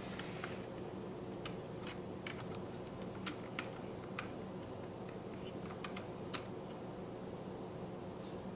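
Faint, irregular small clicks and taps from fingers pressing electrical tape onto a mini PCIe wireless card inside an open laptop, over a low steady hum.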